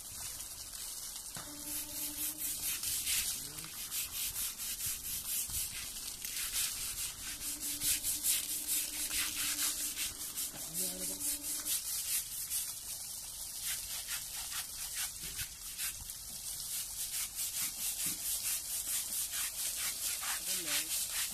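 Hand scrubber rubbing over an Asian elephant's wet trunk skin in quick repeated strokes, with water splashing.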